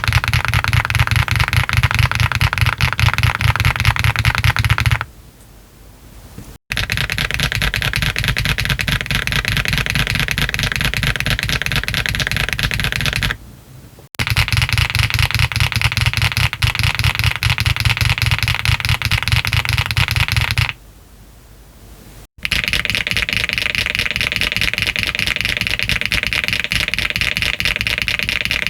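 Typing on a Meletrix ZOOM TKL mechanical keyboard fitted with Yogurt switches and PBT keycaps, case foam removed: fast, continuous keystrokes in four long runs with short pauses between them.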